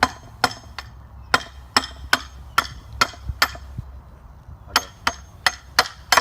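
Hammer blows on a steel bolt, driving it through a 2x4 brace and a fence post. The strikes ring and come about two or three a second in a run, stop for about a second, then start again for a second run.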